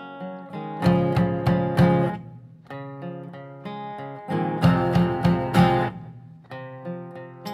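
Two acoustic guitars play an instrumental passage: picked notes, then twice a louder stretch of strummed chords with a drum beating along, about a second in and again past the middle.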